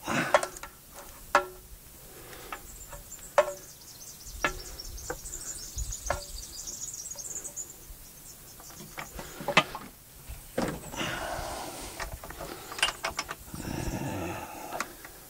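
Scattered clicks and knocks of tools and metal parts being handled while working on a two-stroke generator, with rustling, scraping handling noise in the second half. A high chirping trill runs for several seconds in the first half.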